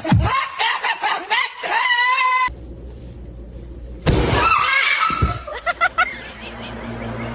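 A parrot screeching and squawking in loud, wavering calls, in two bouts with a short lull between.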